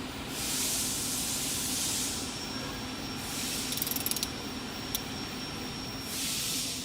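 Hand ratchet on a 1/4-inch 12-point socket turning a hardened ARP connecting rod bolt past its 170 inch-pound torque, the pawl clicking in three quick runs as the handle swings back between pulls, with a single sharp click near the middle.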